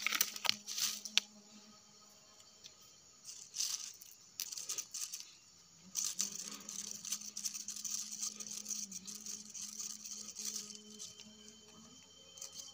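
Soil being scraped and dug by hand in a plastic planting tub: irregular short bouts of scraping and rustling, with a faint steady low hum underneath.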